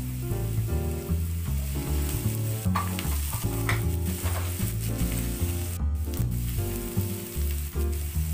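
Diced onions sizzling in hot oil in a nonstick frying pan as they are stirred with a silicone spatula, under background music.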